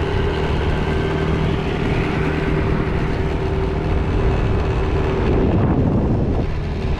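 Car driving: steady engine and tyre rumble heard from inside the cabin, the engine note shifting briefly about five and a half seconds in.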